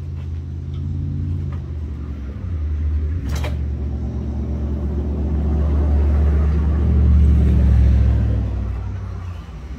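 A motor vehicle's engine running close by, its low drone growing louder to a peak about seven to eight seconds in and then fading. A single sharp knock sounds about three and a half seconds in.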